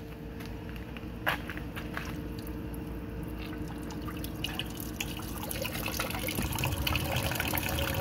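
Water trickling and dripping from a bypass hose back into the flush tank, over the steady hum of a submersible utility pump. The water noise grows louder from about halfway through as the flow picks up once the blocked outlet hose has been bypassed.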